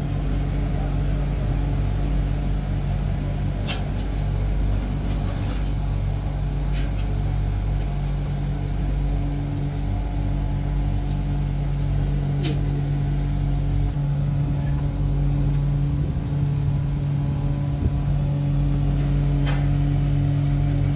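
Workshop machinery running with a steady, even hum, and three sharp clicks spaced several seconds apart.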